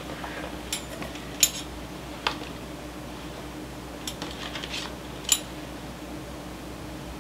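Unboxing handling noise: about six short, sharp clicks and light metallic clinks as items are lifted out of a cardboard box by a hand in a bladed glove. The two loudest come at about a second and a half in and near the end, over a faint steady hum.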